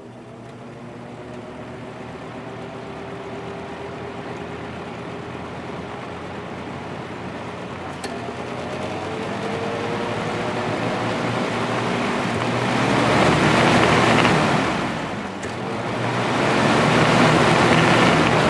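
1980s Galaxy 3713 box fan starting up on its low setting: the motor hum rises in pitch as the blades come up to speed, and the rush of air grows steadily louder, dipping briefly near the end before swelling again.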